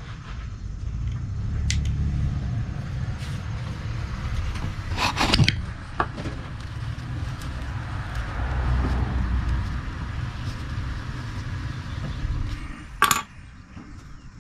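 Small bonsai trimmers snipping pine needles, a few sharp clicks, the strongest cluster about five seconds in, over a low rumble that rises and falls. A louder knock near the end as the camera is handled.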